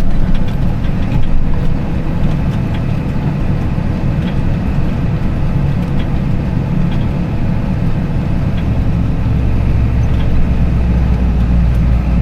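Tractor engine running steadily, heard from inside the cab while the grain cart is manoeuvred alongside a truck for unloading. A deeper low rumble builds about eight seconds in.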